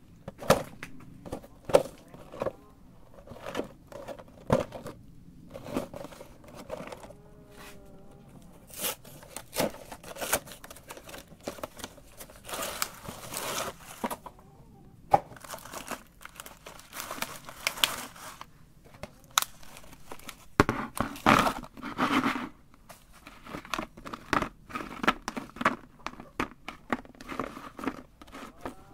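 Clear plastic cookie packaging crinkling and rustling as it is handled and opened, in several longer stretches, with many sharp clicks and taps as the ring cookies are picked out and set down on a plastic plate.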